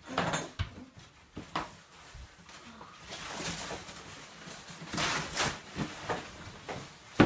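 Rustling and crinkling of white foam packaging wrap being pulled out of cardboard boxes, with scattered knocks of bike parts and cardboard, a sharper knock near the end.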